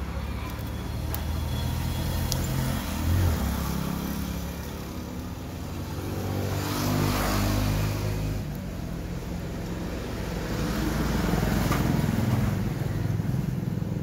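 Motor vehicle engine noise, a low rumble that swells and fades a few times.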